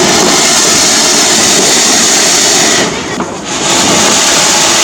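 Firecrackers going off in a loud, continuous, dense barrage, easing briefly about three seconds in before picking up again.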